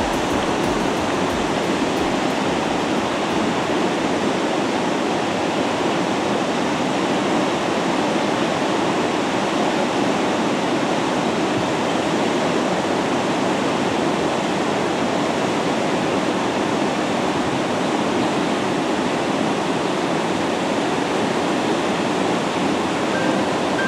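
Flood-swollen river water pouring over a low dam and spillway: a steady, unbroken rush of churning whitewater.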